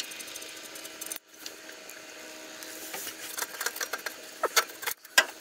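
A steady mechanical hum cuts off about a second in. It is followed by metal knocks and clanks as the Colorado's old exhaust pipe is worked loose by hand, coming faster and louder toward the end.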